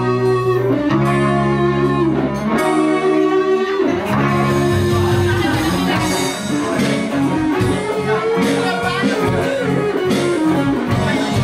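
Live rock band playing through an amplified PA: electric guitars and bass hold sustained chords for the first few seconds, then drums and denser playing come in under a melody line that slides up and down in pitch.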